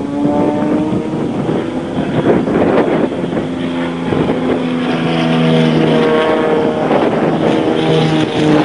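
Piston engine of a Zlin Z-50 aerobatic plane running at power, its note shifting up and down several times as it flies, with wind noise on the microphone.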